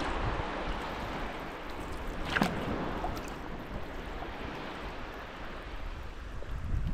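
Water splashing and lapping around a kayak as it is paddled along the shore, with wind rumbling on the microphone. There is one sharper splash about two and a half seconds in.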